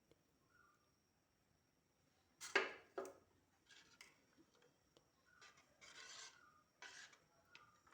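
A spoon scraping the bottom of a pot while stirring thickening rice-and-coconut-milk porridge: quiet at first, then two louder scrapes about two and a half seconds in, followed by several softer strokes.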